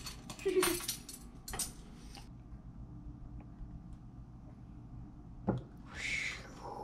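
Clicks and clinks of a plastic oil bottle and a metal measuring spoon handled over a ceramic mug while vegetable oil is measured out: several sharp clicks in the first two seconds, a quieter stretch, then a single knock and a short falling squeak near the end.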